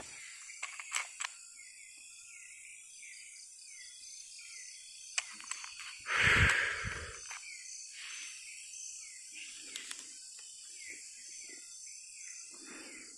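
Night-time jungle insect chorus: a steady high-pitched drone with a repeated chirping call. A few sharp clicks come near the start, and about six seconds in there is a louder rush of noise lasting about a second.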